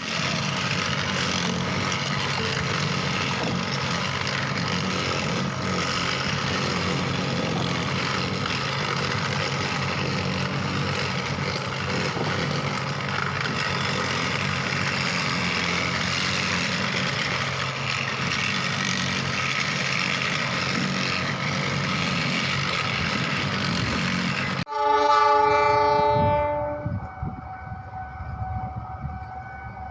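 Train running close by, a steady dense rumble and rattle; after a sudden cut about 25 seconds in, a train horn sounds loudly for about two seconds, followed by a fainter steady tone.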